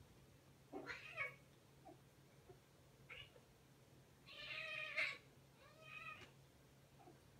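Two house cats scuffling, one of them crying out in several short, pitched calls. The longest and loudest call comes about four to five seconds in.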